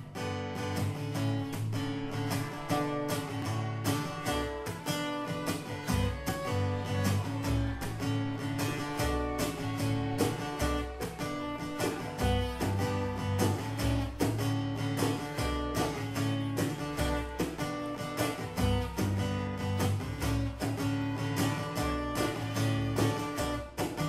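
Live acoustic band playing an instrumental intro: strummed acoustic guitar in a steady rhythm, with fiddle and djembe hand drum.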